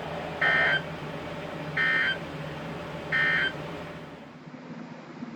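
NOAA Weather Radio's Emergency Alert System end-of-message signal: three short, identical bursts of buzzing data tones, about a second and a half apart, marking the end of the weekly test broadcast. Steady radio hiss and hum run underneath, and the sound changes abruptly a little after four seconds in.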